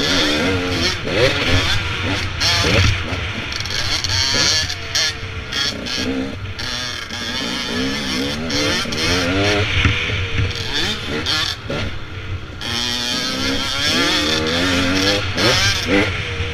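Dirt bike engine heard from on the bike, revving up and down repeatedly through the gears as it rides a dirt trail, with wind rush on the microphone.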